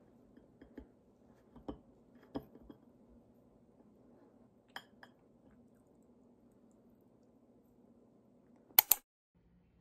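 A wooden dessert fork tapping and clicking against a ceramic plate as small cakes are cut, a few soft clicks over a faint steady hum. Near the end comes a much louder, sharp double click.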